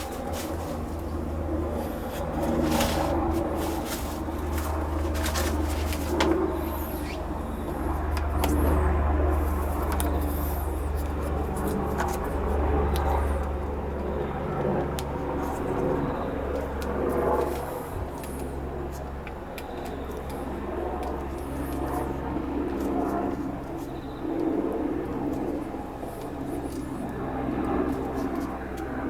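Battery-powered handheld pressure washer running continuously, its motor and pump giving a steady low drone, with a few clicks along the way.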